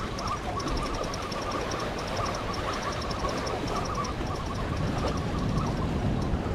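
Fishing reel squeaking as it is cranked: a wavering squeak with quick, even ticking. The reel is dry and needs oil.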